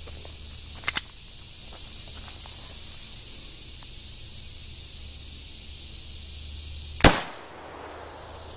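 A single shot from a .22 Long Rifle semi-automatic pistol firing CCI Stinger hollow points: one sharp crack about seven seconds in with a short ringing tail, the bullet striking the helmet. A quieter quick double click comes about a second in.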